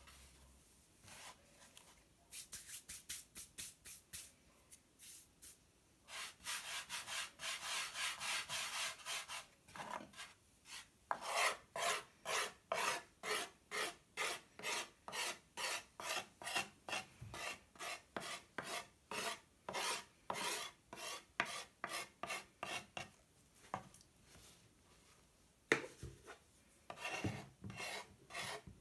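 Knife blade scraping flour and dough scraps off a wooden pastry board in rasping strokes. The strokes come quickly at first, then turn into a dense scrape, and settle into about two strokes a second. There is one sharp knock near the end.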